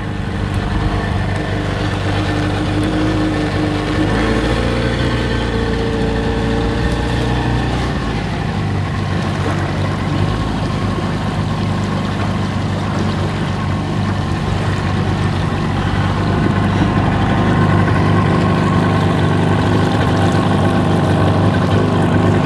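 Outboard motor of a wooden fishing boat running steadily under way, with water washing along the hull. The engine note shifts about eight seconds in.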